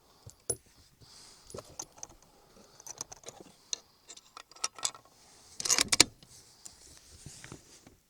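Light metallic clicks and rattles of the .308 bolt-action rifle being handled between shots, with a louder cluster of sharp clacks about six seconds in.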